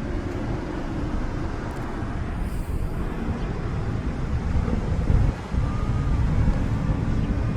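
Road traffic noise: a steady low rumble of passing cars, with a short dip a little after five seconds in.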